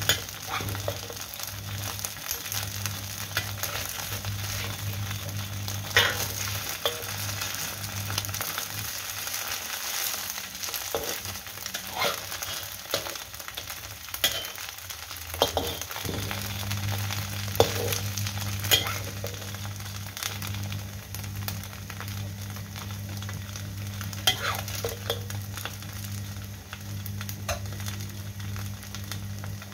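Slices of Chinese New Year cake sizzling as they pan-fry in oil in a wok, with a spatula now and then scraping and clicking against the wok as pieces are turned and lifted out. A steady low hum runs underneath and drops out for several seconds about midway.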